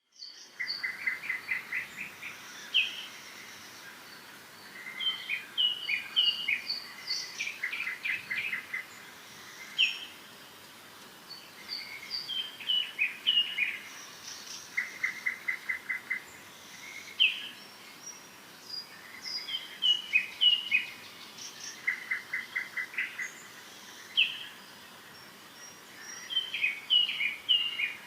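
Songbirds chirping and singing: song phrases recur every few seconds, each a quick run of even notes followed by higher, sliding chirps, over a faint steady background hiss.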